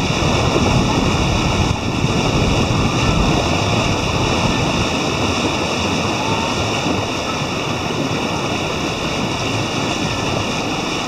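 Loud, steady rushing of wind and sea water, with a heavy low rumble over roughly the first five seconds that then eases.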